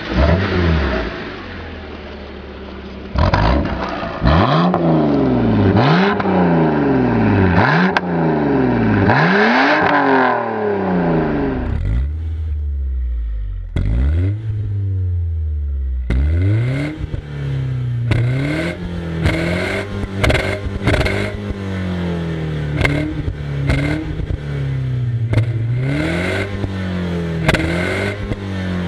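A 2006 BMW 330i E90's straight-six revved over and over, each rev rising and falling in pitch. Then, about 12 s in, a BMW E46 318i's four-cylinder engine with a REMUS exhaust is blipped in short, quick revs with sharp pops and crackles from the tailpipes.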